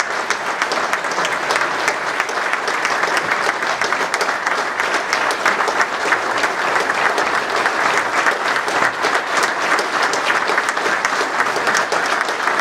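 A roomful of people applauding: dense, steady clapping after a speech ends.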